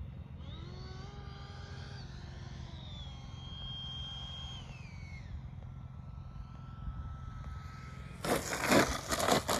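Freewing F5 Tiger RC jet's electric ducted fan whining, its pitch gliding up and down with the throttle and then holding steady and lower as it comes in to land. The sound is sickly: its 12-blade fan does not suit the motor. A loud burst of rough noise near the end.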